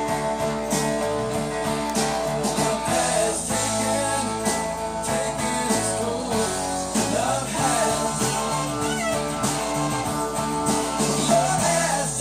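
A vinyl record playing on a Technics SL-QD2 direct-drive turntable: a song with singing and instruments, running steadily without a break.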